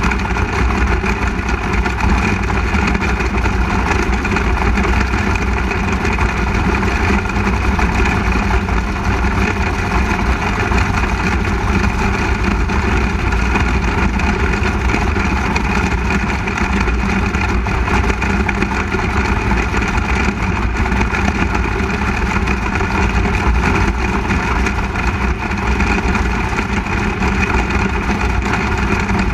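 The 360 cubic-inch V8 of a winged sprint car, running steadily and heard close-up through its own onboard camera, with the engines of the surrounding sprint cars mixed in.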